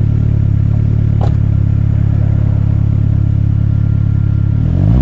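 2002 Saab 9-5 Aero's turbocharged 2.3-litre four-cylinder idling steadily through a sport exhaust, with a light knock about a second in as the driver's door shuts. Near the end the engine starts to rev up.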